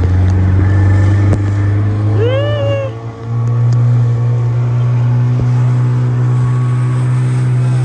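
Small open motorboat's engine running under way, a steady drone that steps up in pitch about three seconds in. A passenger gives a short high rising-and-falling squeal about two seconds in.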